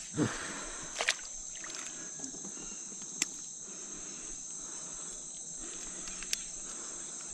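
Steady high-pitched drone of insects, with a few sharp clicks, about one, three and six seconds in, as pliers work an artificial lure out of a fish's mouth.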